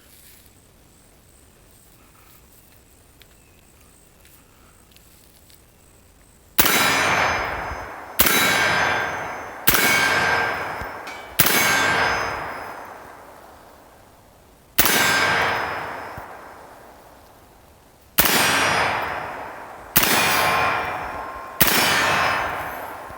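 AR-15-pattern rifle fed from a Magpul D60 drum magazine, fired eight times in slow semi-automatic fire after about six seconds of quiet, each shot followed by a long ringing, fading echo. The rifle cycles every round without a malfunction.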